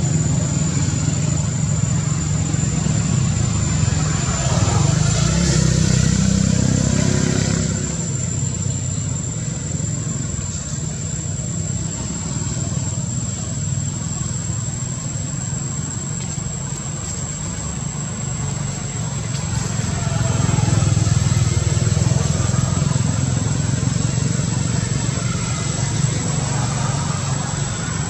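Vehicle engines from road traffic: a steady low engine rumble that swells louder about five seconds in and again about twenty seconds in, with a steady high-pitched whine throughout.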